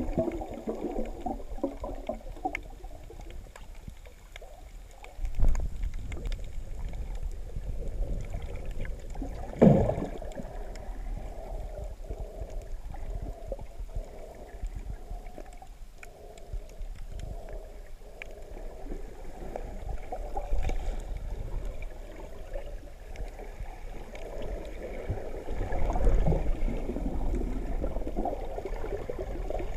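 Muffled underwater water noise picked up through a camera's waterproof housing: gurgling and sloshing over a low rumble, with two sharp louder thumps about five and ten seconds in.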